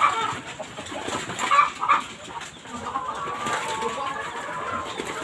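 Chickens clucking in short, irregular calls.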